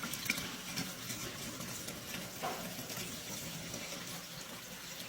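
Kitchen faucet running steadily into a plugged sink, filling the basin with water.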